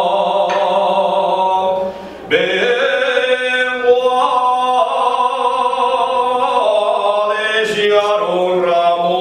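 A man singing solo and unaccompanied in long, held notes that step up and down in pitch, with a short break for breath about two seconds in.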